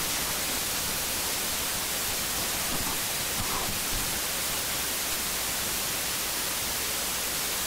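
Steady static hiss, even and unchanging, with no distinct sound standing out above it.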